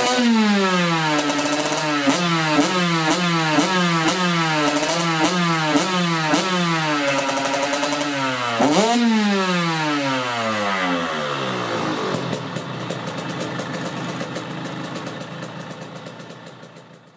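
Two-stroke dirt bike engine, freshly fitted with a new CDI, cylinder head and reed valve, revved on the throttle in quick blips of roughly one and a half a second, then given one longer rev that falls away. It settles to an uneven idle that fades out near the end. The owner thinks it now needs only a carburettor adjustment.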